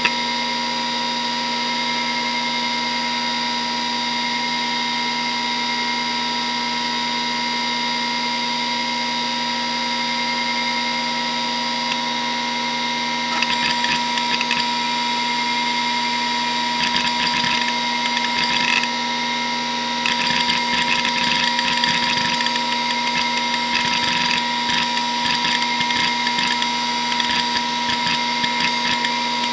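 Hitachi DK522C-10 SCSI hard drive spinning with a steady whine. About halfway through, its heads start seeking in rapid, irregular clicking as the system begins booting from it. The seeking gets busier about two-thirds of the way in as Windows 95 loads.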